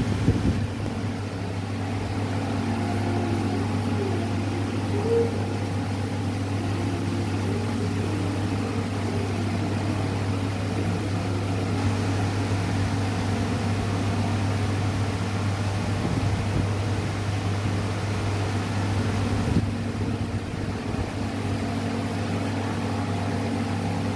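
Steady low machine hum.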